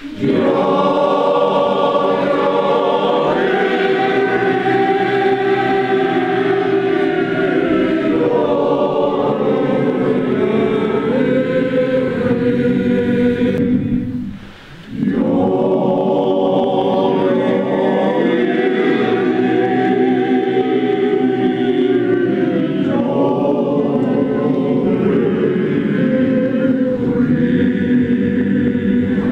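Men's choir singing, with a short break about halfway through before the singing resumes.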